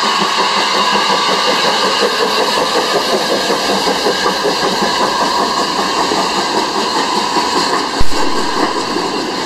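Small steam tank locomotive and its short train of a goods van and a four-wheeled carriage passing close by: a steady rumble and clatter of the train on the rails, with a single sharp knock about eight seconds in.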